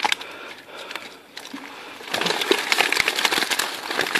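Crackling rustle of a Maver nylon keepnet being hauled up the bank and bunched in the hand, heavier from about two seconds in.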